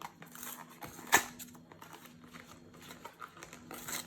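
Sticker packet wrapper crinkling and tearing as it is fumbled open, with scattered small rustles and one sharp click about a second in.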